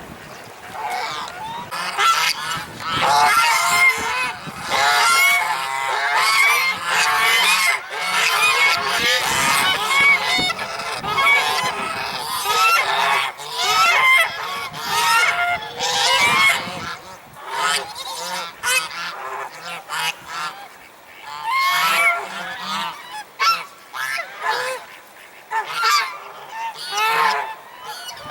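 A group of African geese honking, many calls overlapping for much of the first half, then thinning to separate bouts of honks.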